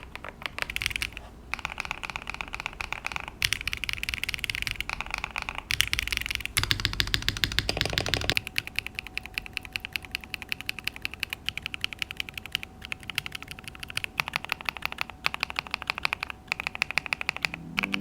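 Mechanical keyboard fitted with Epomaker Dawn Pink switches being typed on quickly and continuously, a rapid run of keystroke clacks.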